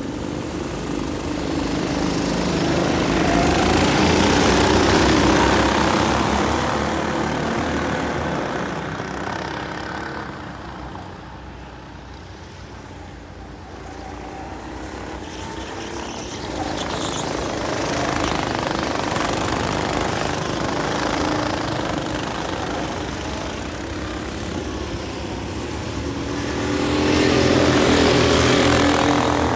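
A pack of go-kart engines revving hard as the karts pull away at the start of a race. The engines are loud as the karts pass close, fade as they go round the far side of the track, and grow loud again near the end as two karts pass close by.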